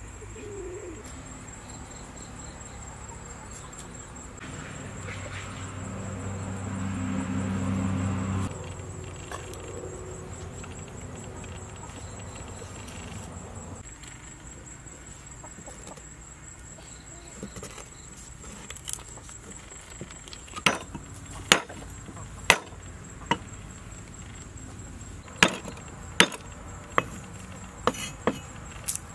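Cleaver chopping on a wooden chopping board: about ten sharp, uneven strokes in the last third. Earlier, a low hum swells and cuts off suddenly about eight seconds in.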